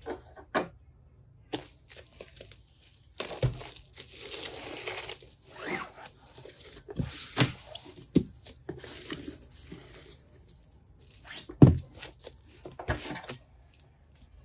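Clear plastic stretch wrap crinkling around a cardboard box as it is handled and turned over, with a series of sharp knocks of the box on the desk. The loudest knock comes about two-thirds of the way through.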